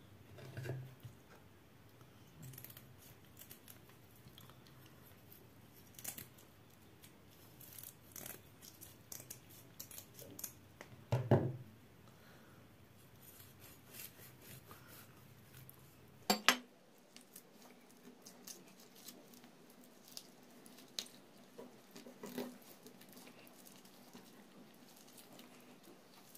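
Knife cutting raw hake on a cutting board during filleting: quiet, scattered clicks and scrapes, with a few sharper knocks of the blade or fish against the board.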